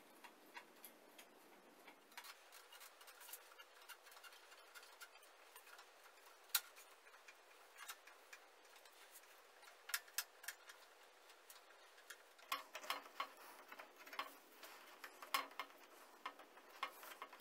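Faint, scattered clicks and taps of a flathead screwdriver pressing a rubber spline cord into the groove of a mosquito-net frame, growing busier about twelve seconds in.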